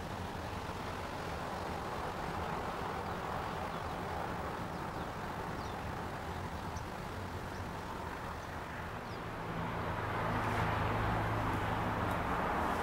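Steady outdoor background noise of distant city traffic across the water, with a low hum that grows a little louder near the end.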